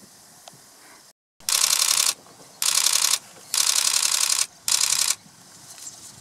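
A camcorder's zoom motor whirring in four short, loud bursts, with a fine ratcheting texture from its gears. Just before the first burst the sound cuts out completely for a moment.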